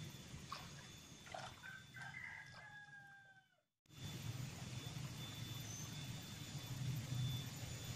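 A rooster crowing once, with a long, slightly falling held note that ends about three and a half seconds in, where the sound briefly cuts out. After that there is a steady low rumble with a faint thin high whine.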